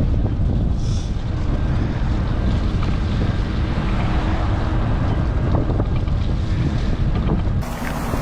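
Strong wind buffeting the microphone: a steady, heavy low rumble with gusty noise above it. The sound changes abruptly near the end, where the footage cuts.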